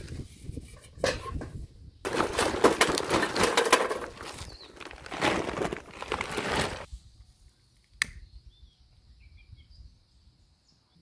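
Charcoal briquettes poured from a bag into a metal chimney starter, clattering in two pours, then a single sharp click.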